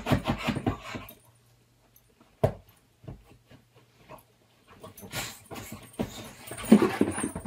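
A boxer dog digging and rooting at a blanket on a leather sofa. Quick rhythmic scratching for about the first second, a single sharp knock about two and a half seconds in, then more scuffling mixed with the dog's own vocal noises from about five seconds in.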